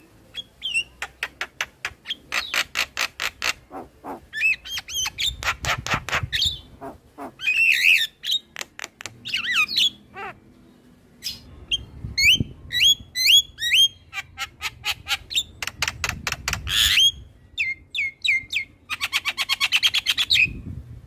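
Javan myna singing a long varied song: runs of fast clicking rattles, groups of short rising whistles, and a harsh buzzy note near the end.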